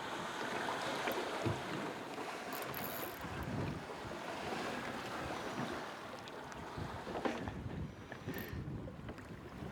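Wind rushing over the microphone with the sea washing around a small boat, a steady noise that eases off after about six seconds, with a couple of light knocks.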